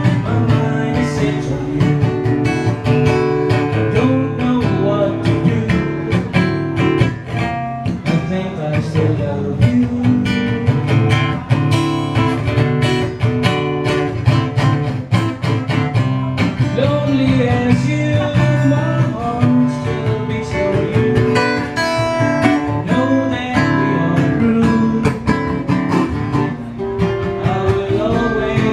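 Acoustic guitar strummed steadily in a live solo performance of a song, played through the house sound system.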